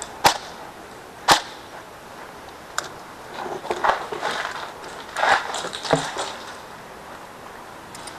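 Two single airsoft gun shots, sharp snaps about a second apart, followed by a few seconds of scuffing and rustling.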